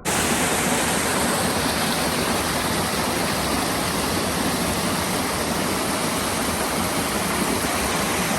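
Waterfall: a steady rush of falling water, cutting in and out abruptly.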